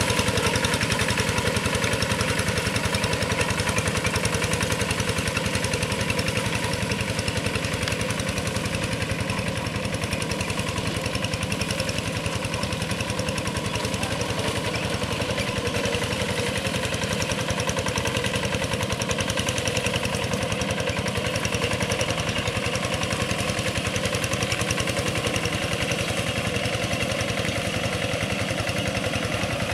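Two-wheel hand tractor's single-cylinder diesel engine running steadily under load as it pulls an implement through paddy mud.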